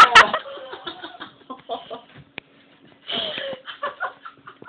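Sharp open-hand smacks on someone's backside right at the start, then laughing and breathing, with a louder burst of laughter about three seconds in.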